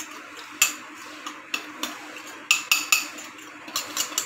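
Metal fork clinking and scraping against bowls as gram flour is knocked out into a glass mixing bowl: a run of sharp, irregular clinks, several in quick succession about two and a half seconds in and again near the end.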